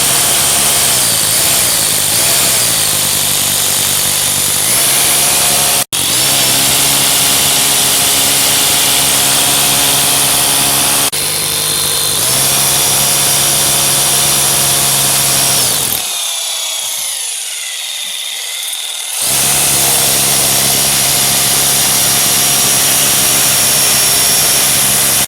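Handheld electric power tool running at high speed with a steady whine. It winds down about two-thirds of the way through, then starts up again about three seconds later.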